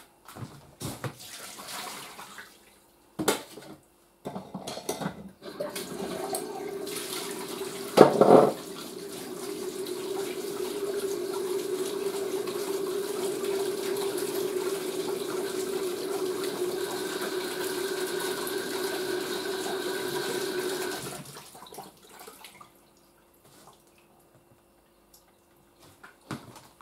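Water running from a tap for about fifteen seconds as fermented tomato seeds are rinsed in a sieve, starting and stopping abruptly. Before it come a few knocks and clatters, and a sharp knock lands about eight seconds in.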